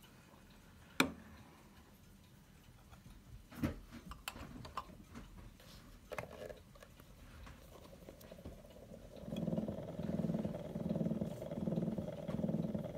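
A few sharp clicks and knocks as an acoustic gramophone is readied. About nine seconds in, a steel needle in a Meltrope III soundbox starts running in the lead-in groove of a spinning 78 rpm shellac record: a steady hiss and rumble that pulses about once per turn of the record.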